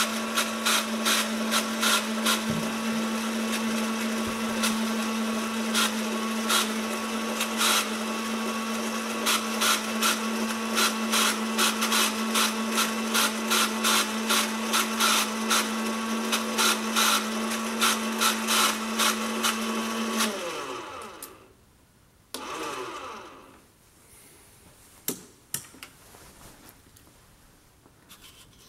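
Model railway turntable drive mechanism running: a small electric motor and gearing with a steady whine and regular sharp clicking as the deck turns. About 20 seconds in, the motor winds down in pitch and stops. A brief second run and a few faint clicks follow.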